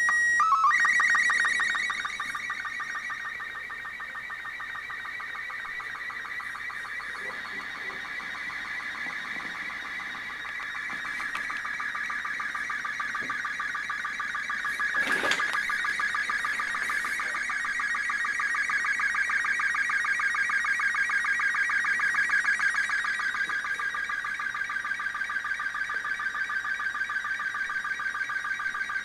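Slow-scan television (SSTV) picture signal played through a CB receiver's speaker. A short steady tone near the start opens the transmission, then a continuous warbling screech of fast-shifting tones follows, with a quick, even line-by-line pulse: an image being received and decoded. A brief click comes about halfway through.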